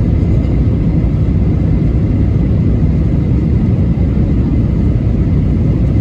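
Jet airliner cabin noise in flight: a steady low rumble of engines and airflow, heard from a window seat.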